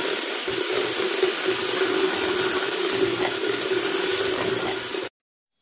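Electric hand mixer running steadily, its twin beaters whisking eggs and sugar until foamy in a plastic mixing bowl under a splash-guard lid. It cuts off suddenly about five seconds in.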